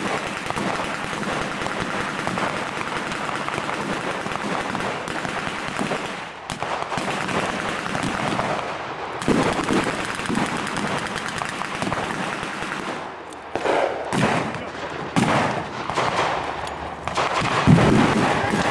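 Gunfire from rifles and machine guns firing blanks: a dense, rapid crackle of shots for the first half, then separate louder bursts in the second half, the loudest near the end.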